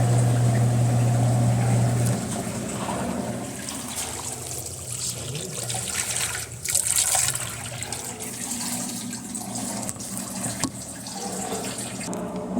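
Electrolux LT11F washing machine with water running through it: a low steady hum for about the first two seconds that then stops, followed by the sound of water running.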